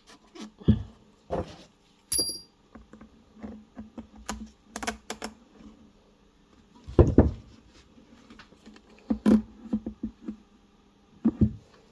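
Irregular clicks and knocks of small metal parts and hand tools being handled while a carburetor is refitted to a Lawn-Boy mower engine, with a brief metallic ring about two seconds in and heavier knocks later on.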